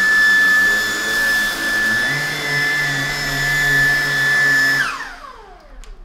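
Lupe Pure Cordless stick vacuum running on high over carpet, its motor a steady high whine. About five seconds in it is switched off, and the whine falls away as the motor spins down.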